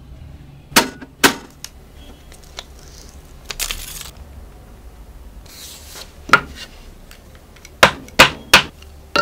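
Handling sounds of sheet-metal parts on a wooden workbench: a few sharp clacks and knocks as the metal flaps and box are moved and set down, with two brief tearing hisses of adhesive tape backing being peeled.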